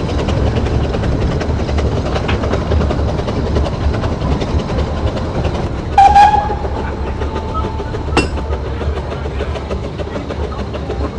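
Narrow-gauge steam train heard from on board: a steady running rumble with wheels clicking over the rail joints. The locomotive's steam whistle sounds once about halfway through, a bright blast that trails off, and a sharp clank follows a couple of seconds later.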